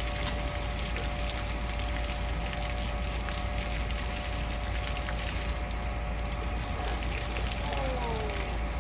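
Steady rush of running water over a constant hum. A few short gliding squeaks come near the end.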